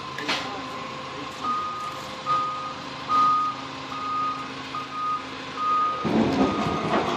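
Doosan forklift's reversing alarm beeping at a steady pace, about one short high beep every three-quarters of a second, over a steady hum. A louder, noisier stretch comes in near the end.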